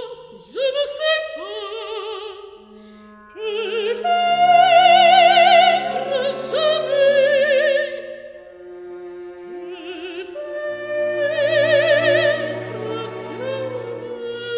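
Background music: an operatic voice holding long notes with wide vibrato over sustained orchestral accompaniment, swelling twice.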